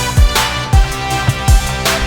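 Background music with a steady beat: kick drum about every 0.4 s, with sharper snare hits over held synth or string notes.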